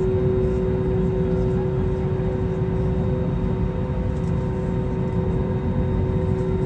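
Steady cabin noise inside an Airbus A320neo airliner: a continuous low rumble with a steady hum of engines and air system.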